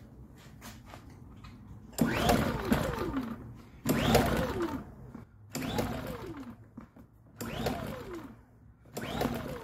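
Pulsar GX400BN dual-fuel inverter generator being pull-started on propane with the choke on, about five pulls. Each pull is a brief crank whose pitch falls away as the engine spins down without catching.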